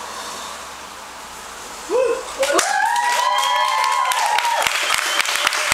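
Audience applause breaks out about two seconds in: steady hand clapping, with one voice cheering a long, rising "whoo" over it for a couple of seconds.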